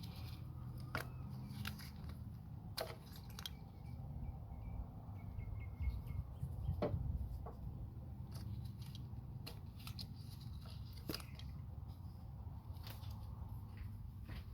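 Scattered light clicks and rattles of hand work on an engine's ignition coils, over a steady low hum.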